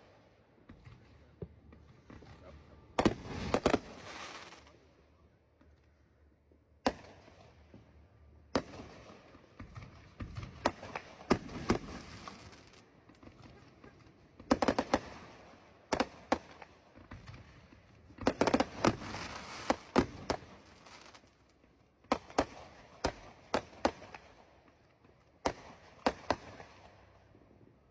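Aerial fireworks bursting: a string of sharp bangs every few seconds, several followed by a second or two of crackling.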